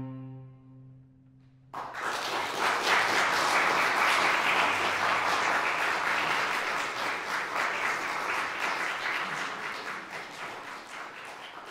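The last note of a cello dies away. Then, a little under two seconds in, audience applause starts suddenly and slowly fades.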